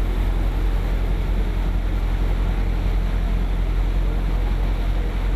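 An engine running steadily with a loud, low rumble and wind noise on the microphone.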